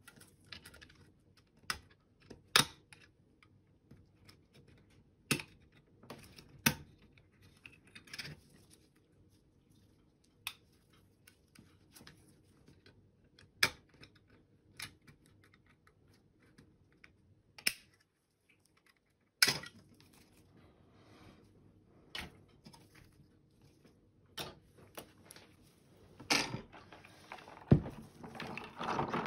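Sharp, scattered plastic clicks and taps as the opened shell of a SteelSeries Sensei 310 gaming mouse is worked with metal tweezers, a second or two apart. Near the end, a brush scrubbing the mouse parts in soapy water.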